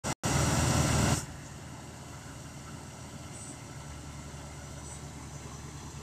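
Ready-mix concrete mixer truck's engine running steadily with a low hum, opening with about a second of loud rushing noise that cuts off abruptly.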